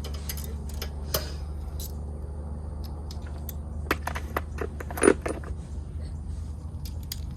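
Metal hand tools and bolts clinking and clicking while the mini bike's fork bolts are tightened, with scattered sharp clicks and a cluster of clinks about four to five seconds in, the loudest near five seconds.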